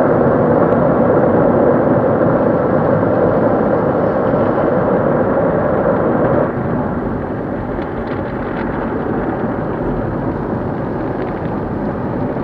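Automatic tunnel car wash working over the car, heard from inside the cabin: a loud, steady rush of water and foam on the body and windshield. It drops in level about six and a half seconds in.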